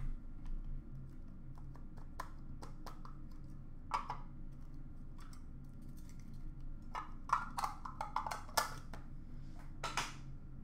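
Hands handling trading-card packaging: short clicks, taps and rustles of small cardboard boxes, cards and a clear plastic case being picked up and put down, clustered about four seconds in and again from about seven to ten seconds.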